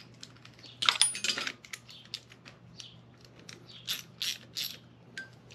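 Light metallic clinks and clicks of hand tools and bolt hardware being handled: a sharp cluster about a second in and three more near the end, over a faint steady hum.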